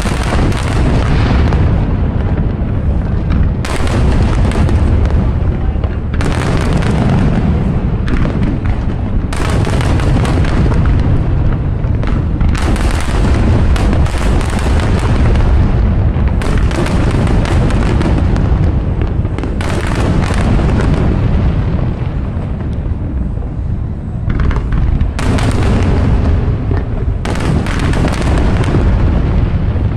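Fireworks display: aerial shells bursting in quick succession, a continuous deep rumble of booms with sharp cracks every second or two.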